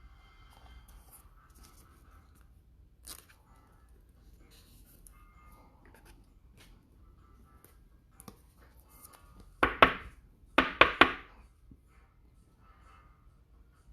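Foil trading-card pack wrapper being torn open in two quick rips of several strokes each, about ten and eleven seconds in, after faint rustling of cards and packaging.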